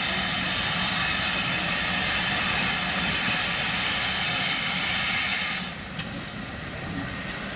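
Steam train passing close: a loud, steady hiss laced with high squealing tones, which cuts off suddenly about five and a half seconds in.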